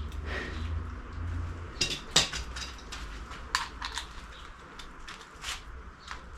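Scattered metal clicks and clinks of hand tools and engine parts being handled, the sharpest about two seconds in.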